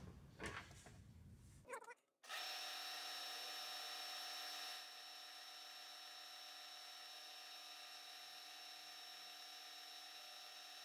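Milling machine spindle running with a steady, whining hum, starting about two seconds in, as a two-flute carbide end mill held in a drill chuck cuts a shallow channel in a soft casting. It drops to a lower level about halfway through.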